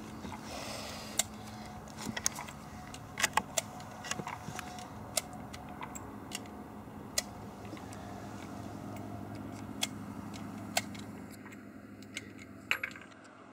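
Scattered light clicks and metallic clinks as a single-shot .22 rimfire youth rifle is reloaded and handled, over a faint steady hum.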